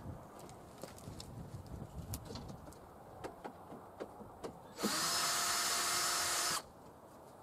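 A power drill runs for nearly two seconds with a steady whine, starting abruptly and cutting off sharply. Before it come a few light taps and clicks of hand work on the frame.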